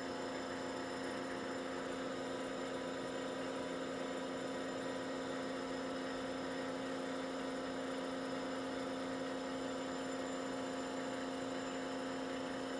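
Electric vacuum pump running with a steady, even hum as it pumps the air out of a glass bell jar.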